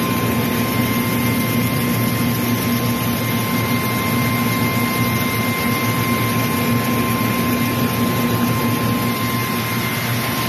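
South Korean Shin Nong rice milling machine running steadily, a constant loud mechanical hum with a high steady whine over it, while milling rice.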